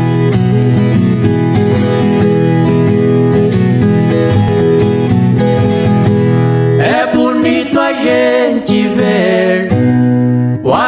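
Instrumental intro of a Brazilian caipira-style country song: acoustic guitar strumming over sustained low notes, with a wavering, pitch-bending melody line coming in about seven seconds in.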